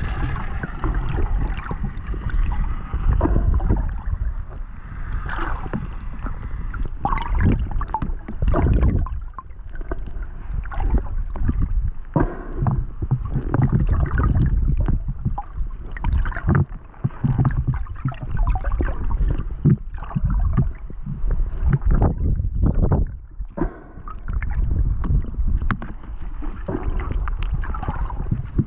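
Muffled underwater sea noise heard through an action camera's waterproof housing: a continuous low water rumble with irregular gurgles, sloshes and knocks as the camera moves just below the surface.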